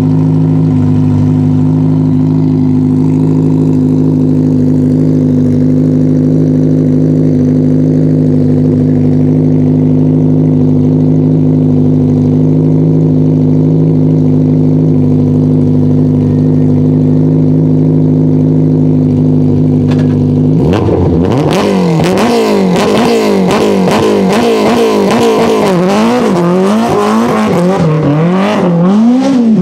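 BMW E30 M3 Group A rally car's 2.3-litre S14 four-cylinder engine idling steadily and loud at close range. About two-thirds of the way in it revs hard and pulls away, the engine note climbing and dropping again and again as it accelerates.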